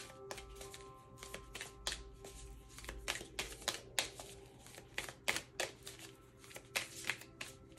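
A deck of oracle cards being shuffled by hand: a quick, irregular run of card clicks and flicks, over soft background music with held tones.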